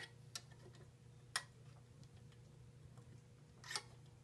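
Faint sharp clicks as stiff insulated wires are pushed and tucked into stacked steel electrical boxes: three clicks in the first second and a half, then a short rattle near the end, over a low steady hum.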